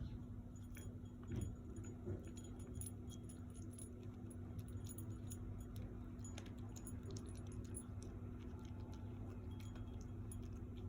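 Many small, irregular clicks and clinks, with two soft knocks in the first couple of seconds, over a steady low hum.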